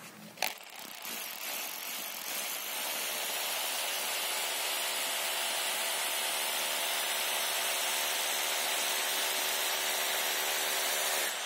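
Electric power drill boring a 12 mm hole into a brick wall. It starts about a second in, settles into a steady run as the bit bites into the brick, and stops near the end.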